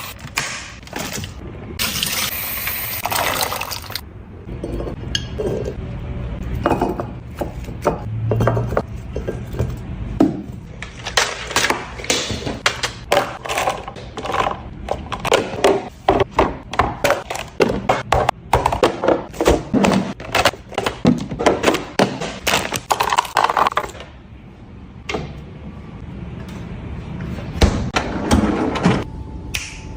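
Irregular clinking and knocking of glass and plastic food containers being handled and set down in a refrigerator, with some liquid sloshing.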